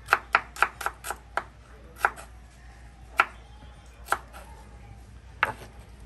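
Kitchen knife slicing red onion on a wooden chopping board: a quick run of about six knocks of the blade on the board in the first second and a half, then single knocks about a second apart.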